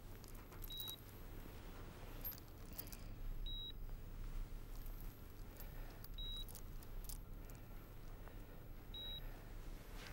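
Hospital patient monitor beeping faintly: one short high beep about every three seconds, over a low steady hum and a few soft clicks.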